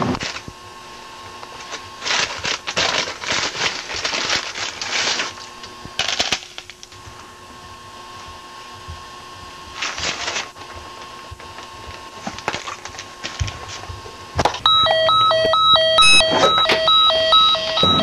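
Bursts of rustling and handling noise, then about fifteen seconds in a loud electronic beeping alarm whose tones switch on and off and step between several pitches.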